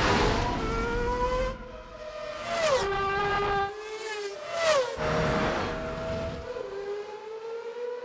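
Formula 1 car engine revving high and climbing in pitch, then sweeping past twice with a sharp drop in pitch and a rush of air each time. The revs climb again and the sound fades near the end.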